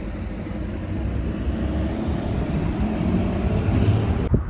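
Street traffic: a motor vehicle passing with a low engine and tyre rumble that grows louder as it draws near, then cuts off suddenly near the end.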